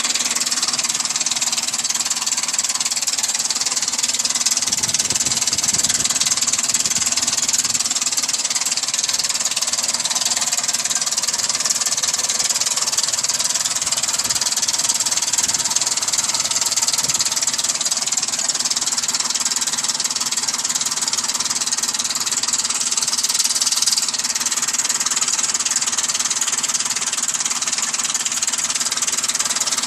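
2004 Ford Explorer's 4.0-litre SOHC V6 engine running steadily with a bad noise that the owner calls horrible.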